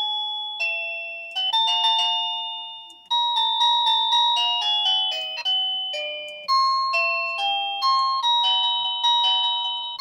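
Dzees wireless doorbell chime receiver playing through its built-in ringtones, bell-like electronic notes in short melodies that ring and fade. A new tune starts several times as the button is pressed to cycle to the next ringtone.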